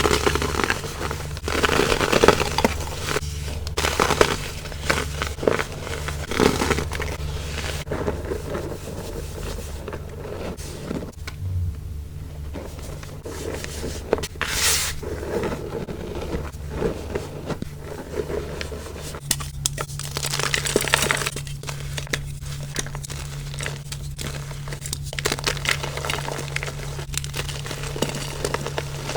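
Compressed baking soda being crumbled and crushed, a dense run of irregular crunching and crackling with a squeaky, snow-like crunch. A steady low hum lies underneath.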